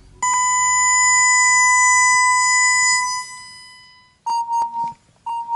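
Electronic tone from a laser tag blaster: one long steady beep of about three seconds that fades away, then a few short beeps near the end.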